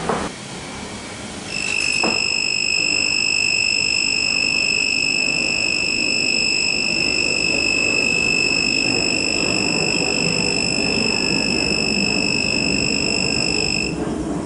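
A non-contact voltage tester's piezo buzzer sounding one steady high-pitched tone, starting about a second and a half in and cutting off near the end: the tester's alarm that it senses live voltage.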